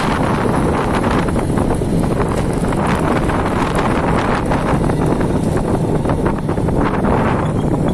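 Strong wind buffeting the microphone: a loud, continuous rumble with a crackly hiss on top.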